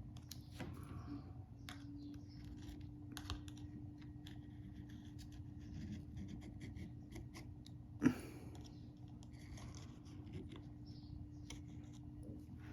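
Faint scattered clicks and light scratching of a small screwdriver and fingers working on a smartphone's new screen, pressing it down to seat and seal it, with one sharper click about eight seconds in. A steady low hum runs underneath.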